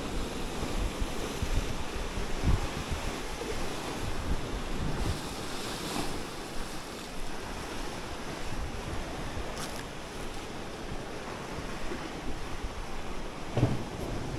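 Small sea waves washing against shoreline rocks, with gusts of wind rumbling on the microphone.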